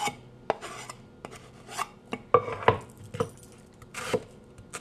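Kitchen knife scraping diced onion off a wooden cutting board into a metal mixing bowl: a string of short scrapes and sharp knocks of blade and board, the loudest near the middle.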